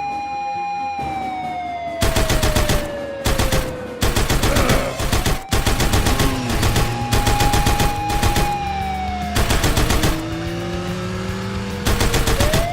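Siren sound effect holding a steady tone, then sliding down and later back up in pitch. Bursts of rapid rattling, each a second or two long, come several times over it.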